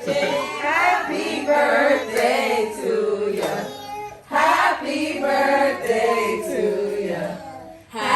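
Singing voices carrying a melody, with short breaks about four seconds in and near the end.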